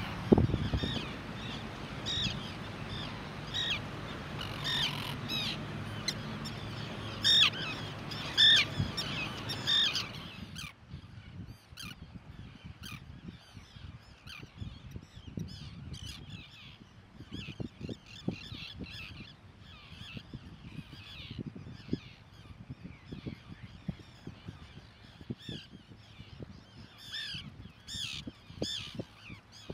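Terns calling, many short calls overlapping over a low steady rumble. About ten seconds in the sound drops suddenly, and after that the calls are quieter and more scattered.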